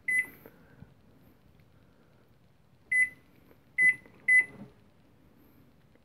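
LG microwave oven's control-panel beeper sounding as its keypad buttons are pressed to set the clock: four short high beeps of the same pitch, one at the start and three between about three and four and a half seconds in.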